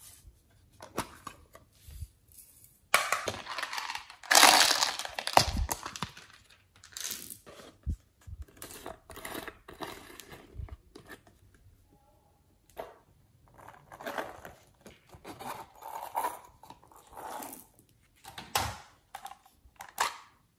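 Small plastic containers and bottles of slime add-ins being handled and opened: scattered clicks, taps and rustles, with a louder stretch of rattling from about three to six seconds in.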